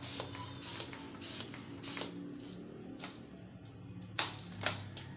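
A homemade alcohol-fuelled toy gun made of plastic pipe being handled and readied: a run of sharp clacks and clicks, roughly one every half second or so, with two louder cracks near the end, the last followed by a brief high ring.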